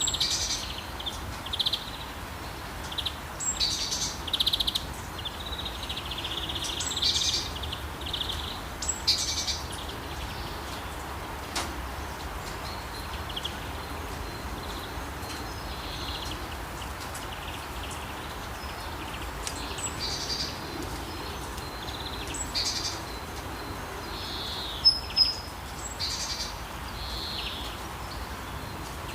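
Birds chirping and calling over a steady hiss of rain, the calls coming in clusters with a quieter stretch in the middle.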